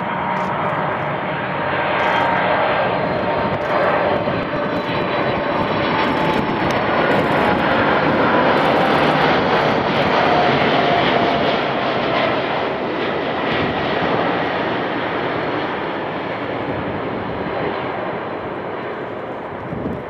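Boeing 747-400 freighter's four jet engines on final approach at low power, a steady jet rumble with a whine. It grows louder to a peak about halfway through, the whine dipping slightly in pitch as the aircraft goes by, then eases off just before touchdown.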